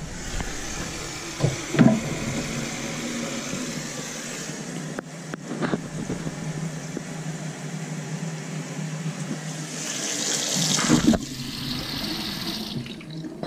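Bathroom sink faucet running, the water draining down through the freshly reassembled pop-up drain and chrome P-trap during a leak test; a steady rush of water with a few light knocks.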